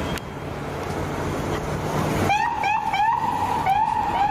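A toy police car's electronic sound effects: a steady car-engine sound, then about two seconds in a fast siren yelp starts, its pitch rising over and over about three times a second.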